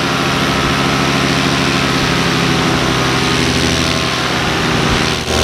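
Paramotor's two-stroke engine and propeller running steadily in flight. The sound dips briefly just before the end.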